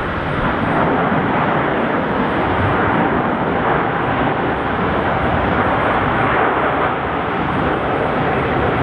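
Airbus A380-800's four GP7200 jet engines heard during its landing roll, a loud, steady rushing noise that holds level throughout.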